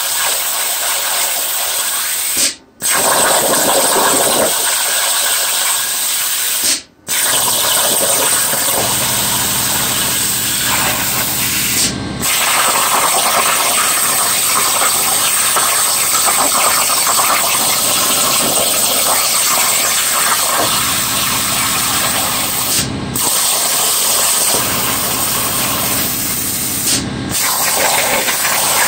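Air-plasma cutting torch (PT-60P) on a CNC plasma table cutting 18-gauge sheet: a loud steady hiss of the arc and air. It cuts off briefly about five times as the torch stops and re-fires between cuts. A low steady hum joins in about 8 seconds in.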